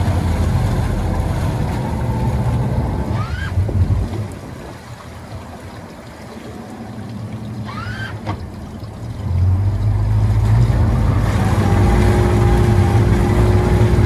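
Twin Yamaha 250 hp outboards running under joystick control. Their rumble drops back about four seconds in and picks up again about nine and a half seconds in, with a steady engine note after that. Two short rising whines are heard, at about three and eight seconds.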